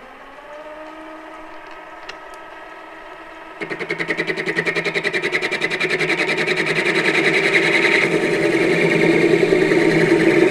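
Mini lathe running with its spindle up to speed. About three and a half seconds in, a turning tool starts cutting into the spinning steel bolt. This adds a loud, rapidly pulsing cutting noise that keeps building, from plunging a turning tool where a parting tool would have suited better.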